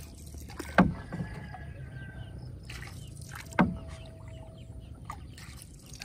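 Small boat being pushed through the water, with two sharp knocks about three seconds apart over a low steady background.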